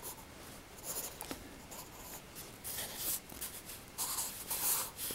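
Graphite pencil scratching on sketchbook paper in quick, irregular strokes, with louder runs of strokes about a second in, around three seconds and near the end.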